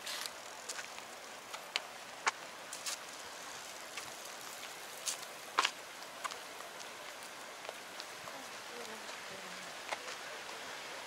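Steady outdoor background hiss with a scattering of sharp, irregular light clicks and ticks.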